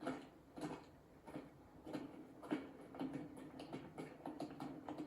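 Faint, evenly spaced soft thuds, a little under two a second, from the anime episode's soundtrack.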